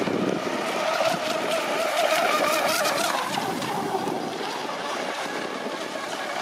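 Radio-controlled racing catamarans running fast on the water, their motors giving a high whine that wavers in pitch. The whine fades somewhat after about four seconds as the boats pull away.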